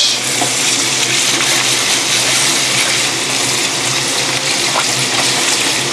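Tap water running steadily into a stainless-steel sink as salted sliced onions are rinsed.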